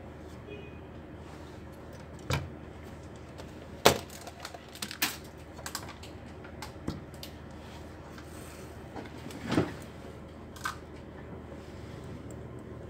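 Scattered clicks and knocks of small tools and hard plastic parts being handled on a workbench, the loudest a sharp knock about four seconds in.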